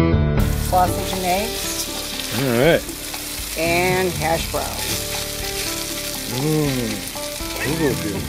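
Diced potatoes and onions frying with a steady sizzle in a skillet on a camp stove, stirred with a spatula scraping the pan. Several short wavering pitched sounds rise and fall over the sizzle.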